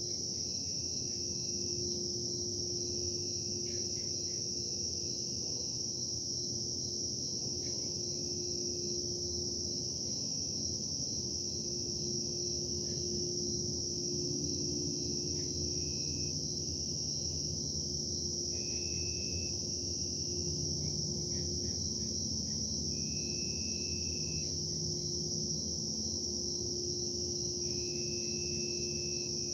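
A steady high-pitched insect chorus, with shorter, lower chirps starting and stopping throughout. Beneath it runs a low, steady rumble with a faint hum, the industrial production noise the uploader complains of as a disturbance.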